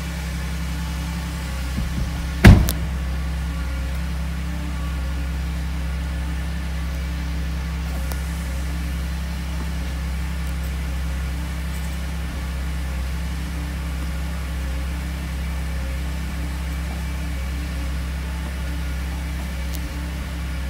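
Audi Q5 engine idling steadily, heard from inside the cabin as a low, even hum. About two and a half seconds in there is one short, sharp knock, the loudest sound here.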